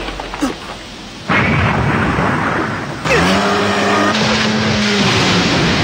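Animated sound effects of a small craft speeding through water: a loud rush of splashing water starts about a second in. About three seconds in, a motor hum rises in pitch, then holds steady.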